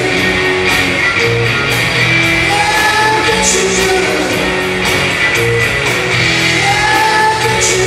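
Live rock band playing loud: electric guitar, bass guitar, drum kit with cymbals and keyboard.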